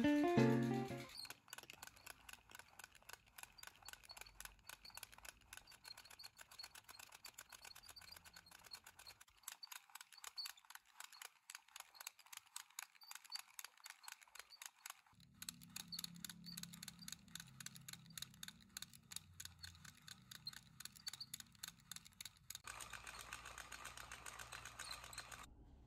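Hand-cranked i-cord knitting machine being turned, giving a faint, steady run of quick light clicks from its crank and needle mechanism.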